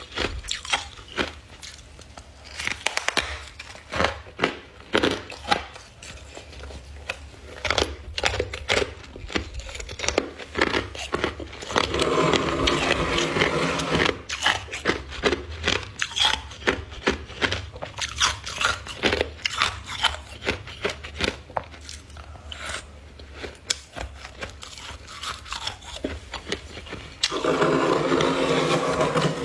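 A person biting and chewing chunks of freezer frost, with sharp crunches throughout and two stretches of dense, louder crunching, one about twelve seconds in and one near the end.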